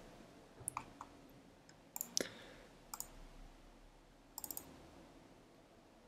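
Faint clicks of a computer mouse, five or so spaced a second or two apart, with a quick run of three or four about four and a half seconds in.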